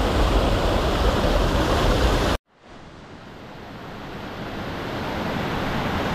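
Mountain stream rushing over a rocky cascade, a loud steady rush of water. About two and a half seconds in it cuts off abruptly, then quieter running water fades back in and slowly grows louder.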